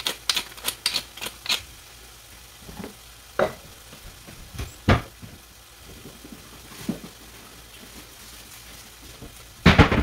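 Wooden pepper mill grinding black pepper over a hot pan: a quick run of dry clicks, about five a second, that stops about a second and a half in. Then the stir-fry of bamboo shoots sizzles softly on the gas flame, with a few scattered knocks and a loud clatter near the end.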